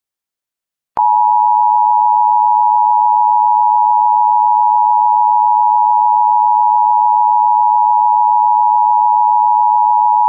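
Emergency Alert System attention signal: two steady tones sounding together just under 1 kHz (the standard 853 Hz and 960 Hz pair), starting about a second in and held unchanged at a constant loud level. It signals that an emergency warning message is about to follow.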